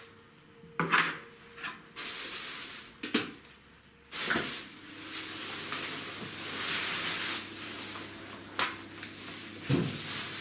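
Plastic shopping bag rustling and crinkling as groceries are pulled out of it, with a few sharp knocks of items being set down on the table.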